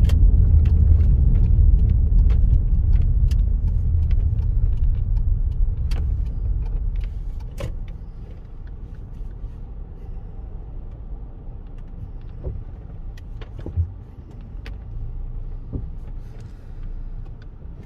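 Car driving, a heavy low road-and-engine rumble with scattered light clicks. It gets quieter after about seven seconds.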